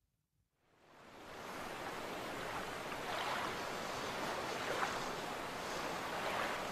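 River full of drifting ice floes at the spring break-up: a steady rush of water that fades in over the first second or so, with a few brief louder surges.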